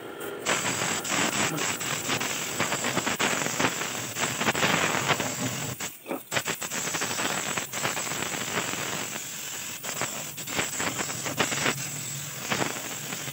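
Compressed-air paint spray gun hissing as it sprays, in long bursts with a short break about six seconds in.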